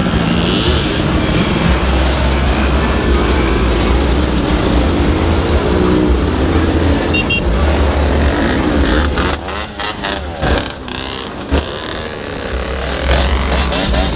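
Two-stroke motorcycles riding past one after another, their engines revving with pitch rising and falling several times. About nine seconds in, the sound turns choppier and a little quieter for a few seconds, then picks up again.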